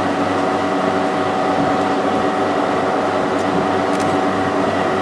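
A steady hum made of several steady tones, even throughout.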